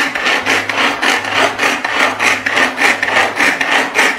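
Hand-pull string vegetable chopper being pulled again and again, its blades spinning through onion with a rasping whirr on each pull, about three pulls a second.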